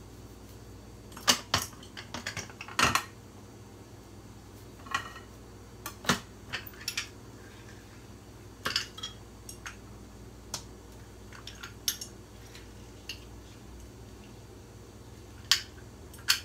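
Key limes being cut with a knife and pressed in a handheld lime squeezer: scattered sharp clicks and clacks, a dozen or so at uneven intervals, over a low steady hum.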